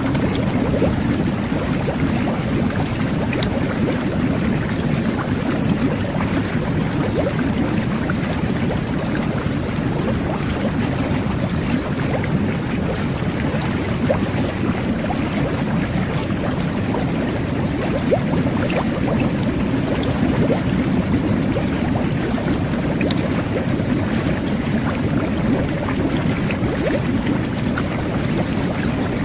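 Whirlpool jet bath running: water jetting and churning with a steady stream of bubbling.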